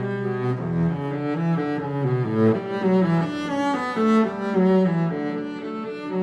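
Background music: bowed strings, cello-like, playing a moving melody over a bass line.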